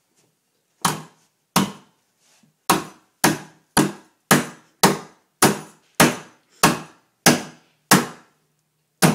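Crowbar repeatedly striking a locked door's knob: about thirteen sharp metal-on-wood blows, roughly two a second, with a pause after the second blow. The knob is being broken off to force the locked bathroom door open.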